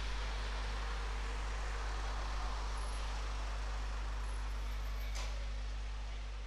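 A steady low rumbling drone with an even hiss over it, beginning to fade out near the end.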